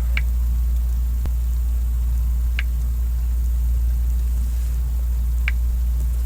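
Steady low hum with a faint hiss, broken by three brief high chirps a few seconds apart.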